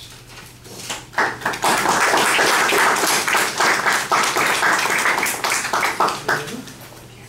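Classroom audience applauding: the clapping starts about a second in, holds steady for about five seconds, then dies away.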